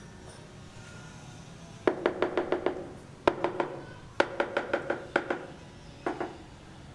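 Rapid knocks on something hard, in four quick runs of several strikes each, the longest about seven strikes in under a second.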